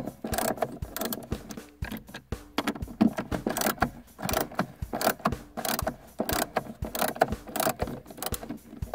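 Hex-bit screwdriver backing out small hinge screws, its ratchet clicking in quick irregular runs as the handle is turned back and forth.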